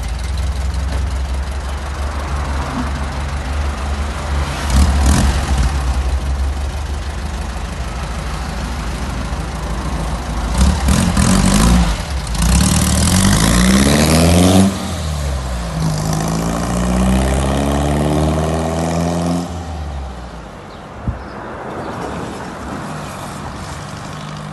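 A vehicle engine idling with a steady rumble. Roughly halfway through it is revved up twice, its pitch rising and falling, then it settles back to a quieter idle. A single sharp click comes near the end.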